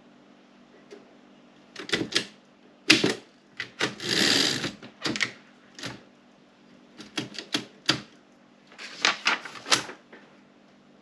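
Woodstock 5 manual typewriter being typed on: key strikes come in short, irregular clusters with pauses between them, and a longer rasping noise runs for under a second about four seconds in.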